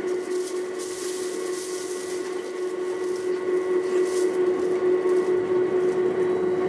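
Uijeongbu light rail train running along its guideway, heard from inside the car: steady rolling noise with a steady mid-pitched whine.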